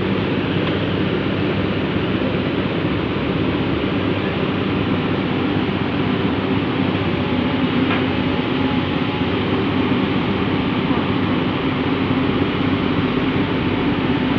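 Heavy-equipment diesel engine running steadily at a constant pitch, a loud even drone with a hum low in the range.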